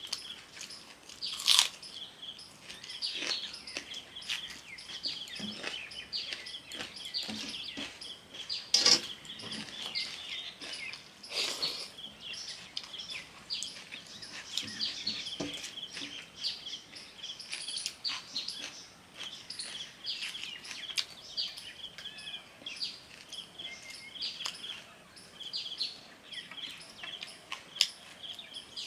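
Small birds chirping steadily, with a hand squishing and stirring watery soaked rice in a steel plate. Now and then there is a sharper wet click or slap, the loudest near the start and about nine seconds in.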